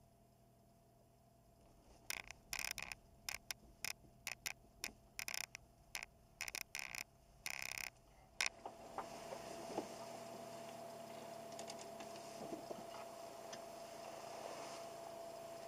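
Faint sounds in a slowly moving car's cabin. A run of irregular clicks and ticks lasts several seconds, then gives way to a steady faint hum with a thin whine.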